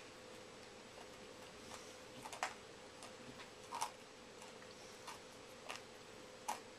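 Faint chewing of a slice of chocolate pizza made of digestive biscuits, Jaffa cakes, chocolate buttons and marshmallows: a handful of short, irregular crunches and mouth clicks over a steady low hum.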